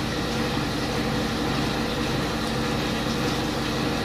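Water poured from a jug into a pan of chicken and vegetables on the stove, over a steady mechanical hum.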